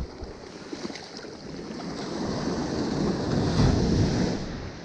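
Small ocean surf breaking and washing up the sand at the waterline, swelling to its loudest just before the end and then easing.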